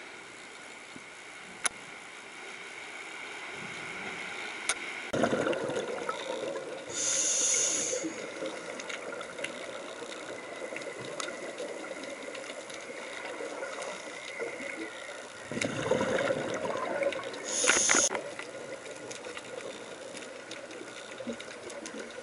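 Scuba regulator breathing underwater: two breaths about ten seconds apart, each a rush of exhaled bubbles followed by a short, sharp hiss of air drawn through the regulator.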